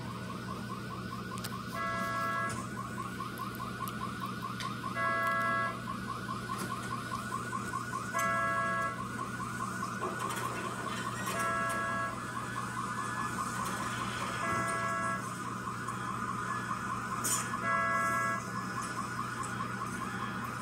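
Car alarm going off: a fast warbling siren tone that keeps on, broken by a loud honk about every three seconds, six in all, over a steady low hum, heard through a television's speaker.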